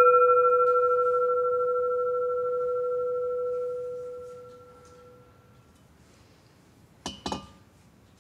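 Singing bowl ringing after a strike: a steady low tone with fainter higher overtones, gently wavering as it dies away over about five seconds. A couple of light knocks come about seven seconds in.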